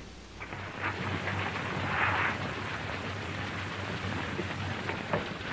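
Steady rushing noise like rain, with scattered crackles, on an old black-and-white film's soundtrack; it swells about half a second in.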